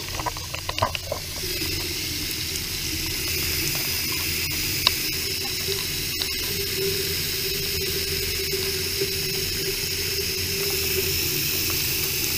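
Hot water pouring in a steady stream into a white basin and running down its drain, a constant hiss, with a few small knocks in the first second or so.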